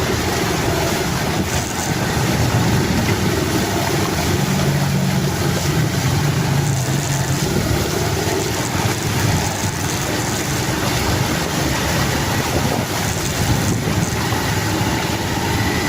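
A motor vehicle's engine running under a steady rush of noise, probably water wash along a flooded road, with wind buffeting the microphone. The engine note is most prominent about four to seven seconds in.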